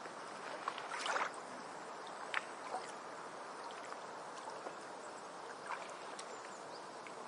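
Water lapping and trickling, with scattered small splashes and a brief louder splash about a second in.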